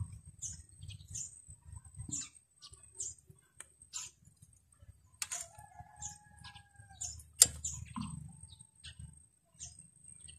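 Faint small metallic clicks and taps from a ring wrench and fingers working the tappet adjusting screw on a Suzuki Smash's rocker arm while the valve clearance is set by feel, with one sharp click about seven seconds in. A rooster crows in the distance about five seconds in.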